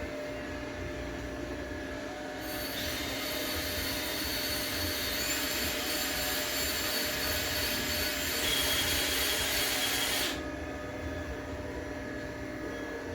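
TIG welding arc hissing for about eight seconds, starting about two seconds in and cutting off suddenly, with a thin high whine, over a steady machine hum.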